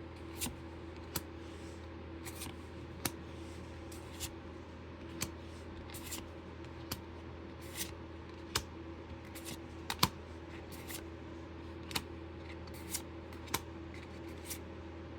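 Trading cards being handled and flicked through one by one, giving irregular light clicks and brief papery rustles, over the steady hum of computer fans.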